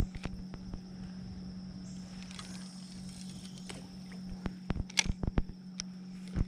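Spinning reel and rod being handled from a kayak: scattered sharp clicks and knocks, a few at the start and a quicker run of them in the last two seconds as the reel is worked, over a faint steady hum.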